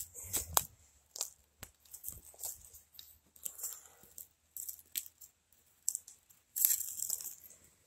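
Footsteps on dry fallen leaves and twigs: a scatter of sharp crackles and clicks, with a denser run of crunching near the end.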